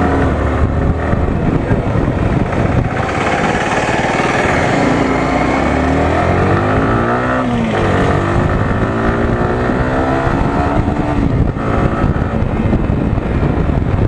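Sport motorcycle engine running under way, its pitch climbing and then dropping back a few times as it accelerates and shifts gear, with wind noise on the microphone.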